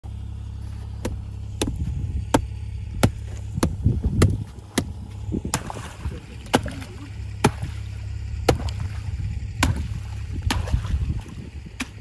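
Sledgehammer striking the frozen-over water in an old bathtub trough, about a dozen sharp blows, one roughly every second, breaking up the thick ice.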